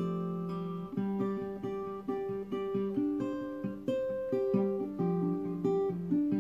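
Solo acoustic guitar playing an instrumental passage: picked notes and chords in a steady rhythm, each left to ring.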